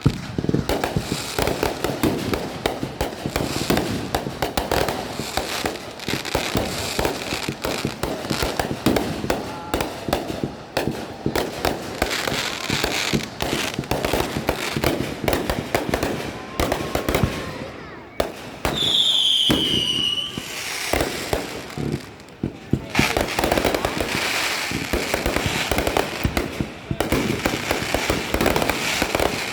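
Fireworks and firecrackers going off in dense, rapid pops and bangs. About 19 s in, a whistling firework gives a shrill whistle that falls slightly in pitch over about a second and a half.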